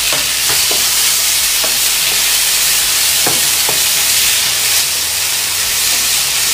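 Chopped tomatoes sizzling in hot oil in a frying pan, with a wooden spatula scraping and knocking against the pan several times as they are stirred.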